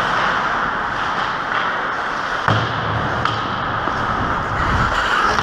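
A loud, steady rushing hiss with a few faint knocks in it, which cuts off suddenly at the end.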